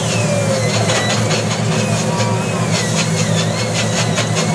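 Single-cylinder 'dompeng' diesel engine running steadily, driving a simple lathe that turns a coconut-trunk pole. Over it are a rapid ticking and a thin, wavering high tone.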